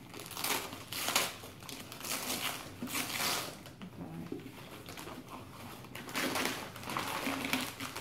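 Gift-wrapping paper crinkling and tearing as a wrapped box is opened by hand, in several separate spells of rustling.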